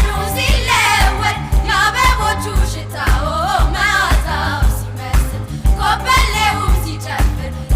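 Music: a song with a singing voice over a steady beat of about two low kicks a second.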